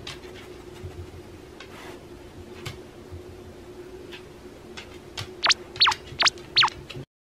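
A quiet room with a faint steady hum and a few soft clicks, then a whistle sound effect gliding up and down sharply twice near the end.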